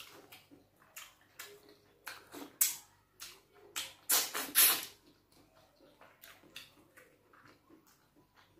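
Close-miked wet eating sounds: fingers squelching through soup in a bowl, then loud wet mouth sounds about four seconds in as a handful goes into the mouth, followed by soft chewing clicks.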